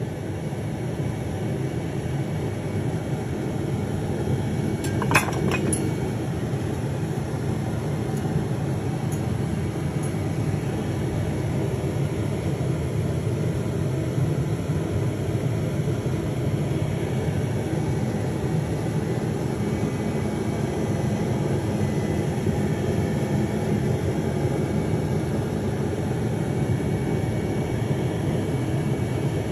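Steady, even mechanical hum with a low rushing noise, with one light clink about five seconds in.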